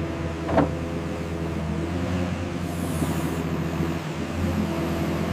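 Skid steer loader's diesel engine running steadily, with a short sharp squeak or hiss about half a second in.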